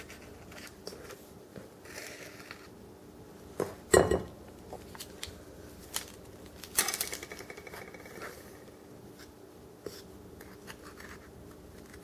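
Plastic measuring spoons knocking and scraping against a small metal can of baking powder while it is scooped and levelled off: scattered light clicks, a sharp knock about four seconds in, and a rasping scrape lasting about a second and a half near the middle.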